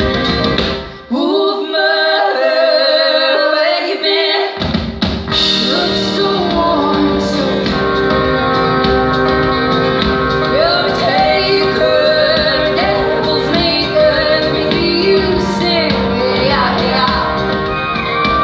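Live band performance of a folk-rock song, with female vocals over guitars, keyboards, bass and drums, heard from the audience in a concert hall. About a second in, the band drops away to the voices and a held note with no bass. The full band comes back in at about four and a half seconds.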